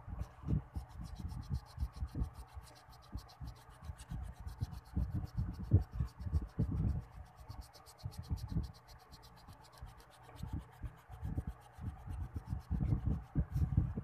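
Rubber eraser scrubbing back and forth on drawing paper in quick, uneven strokes, rubbing out the pencil sketch under the inked lines.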